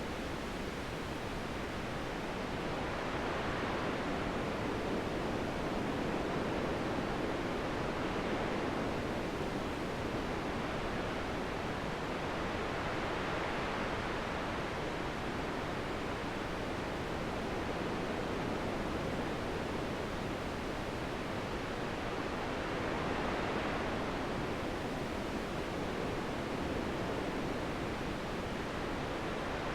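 Wind blowing as a steady rushing noise that swells and eases in slow gusts a few times.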